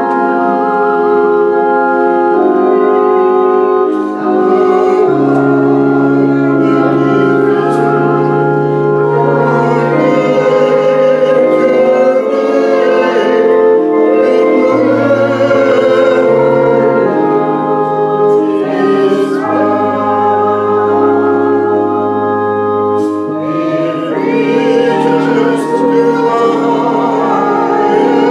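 Church organ playing a hymn in sustained chords with a moving bass line, with voices singing along.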